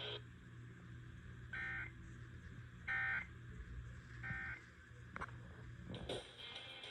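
Emergency Alert System end-of-message signal heard over FM radio: three short bursts of warbling digital data tones, about a second and a half apart, marking the close of the severe thunderstorm warning.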